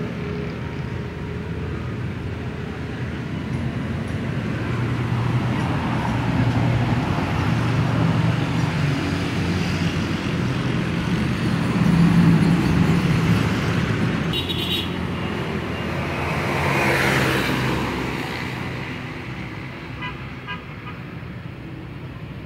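Road traffic: engines of passing vehicles swelling and fading, with a brief horn toot partway through.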